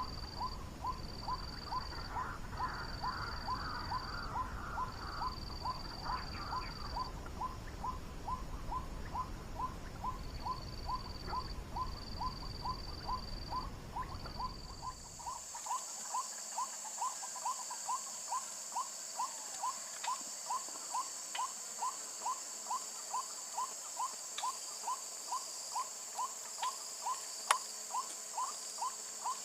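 White-breasted waterhen call, a monotonous call repeated very evenly about twice a second, most likely played from an MP3 bird caller used as a lure for waterhens. High insect buzzing sounds above it, and a low rumbling noise underneath stops about halfway through.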